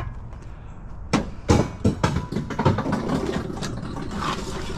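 Junk being handled and shifted in a curbside pile, with repeated knocks and clatter of items striking one another starting about a second in, over a low steady rumble.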